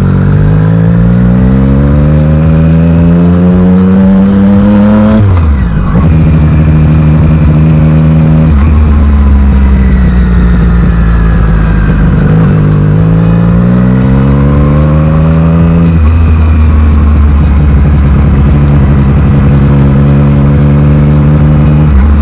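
Triumph Street Triple's inline three-cylinder engine under way, rising in pitch as it accelerates, falling suddenly about five seconds in, holding steady, then rising again and falling suddenly near sixteen seconds.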